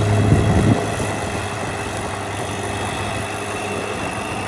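A bulldozer's heavy engine idling with a steady rattle. A deep hum underneath cuts out under a second in.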